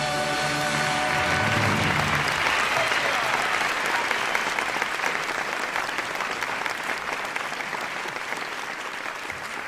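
The song's last held chord on acoustic guitar and upright bass dies away about a second and a half in as a studio audience breaks into applause, which swells and then slowly fades.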